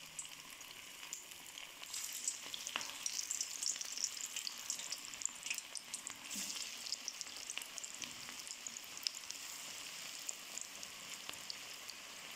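Cabbage and gram-flour pakoras deep-frying in hot oil, a steady high sizzle full of fine crackles that grows a little louder about two seconds in.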